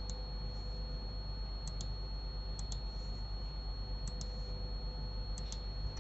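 Computer mouse clicking: five quick double ticks spread over a few seconds, each likely a button's press and release, over a faint steady hum and a thin high whine.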